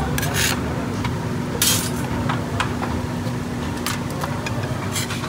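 Metal ladle scraping and clinking against the inside of a large metal pot as it stirs and lifts out pieces of cooked meat: a few irregular scrapes and clinks, the longest a little under two seconds in, over a steady low rumble.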